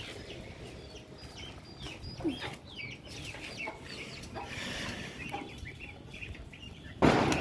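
Scattered short calls and chirps from the birds of a backyard pigeon and poultry yard, with a short low gliding call about two seconds in. Near the end a single loud, brief burst of noise cuts in.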